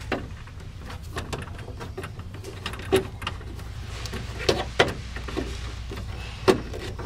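Rubber hose and wiring being handled and pulled down by hand: scattered light clicks, knocks and rubbing, the sharpest about three seconds in and again near the end, over a steady low hum.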